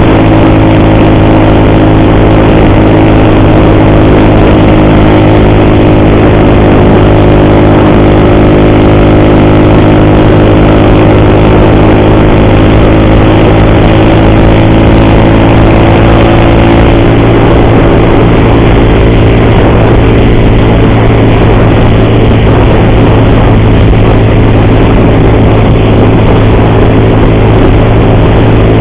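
Motorcycle engine running steadily under way, its note dipping slightly partway through. The rider complains of an ugly noise from the cam chain on this bike.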